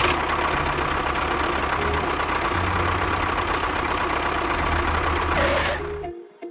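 A small machine runs steadily with a noisy, even whirr for about six seconds, then cuts off suddenly. Background music plays underneath.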